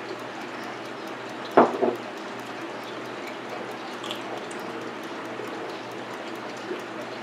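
A single short knock with a quick double bump about one and a half seconds in, over a steady background hiss.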